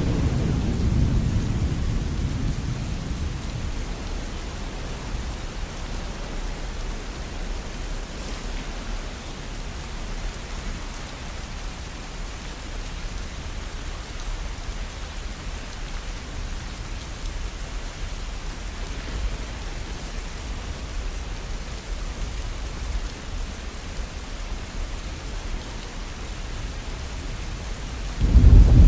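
Steady rain falling, with a low rumble of thunder fading over the first few seconds and another loud peal of thunder starting suddenly near the end.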